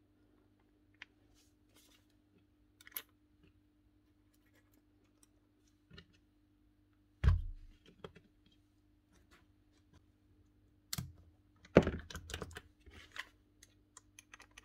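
Small metal parts of a DeWalt impact driver's quick-release tool holder clicking and knocking as its spring, steel ball and collar are handled and refitted by hand. There is a louder knock about seven seconds in and a quick run of clicks near the end.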